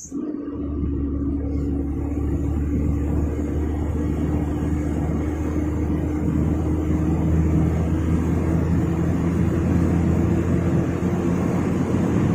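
Vehicle engine running steadily under way, a low drone with a steady hum, cutting in suddenly at the start.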